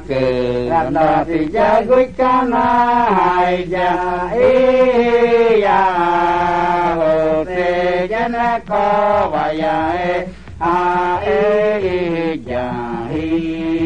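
Background music: a voice chanting in long held notes that shift in pitch every second or so.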